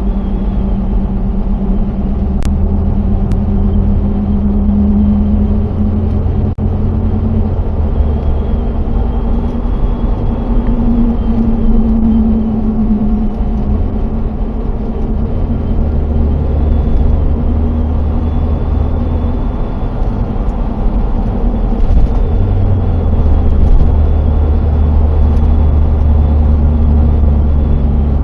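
1998 Jeep Grand Cherokee (ZJ) driving on the road, with a steady engine and road rumble. A faint high whistle comes and goes over it, which the driver places somewhere in the front end but cannot find.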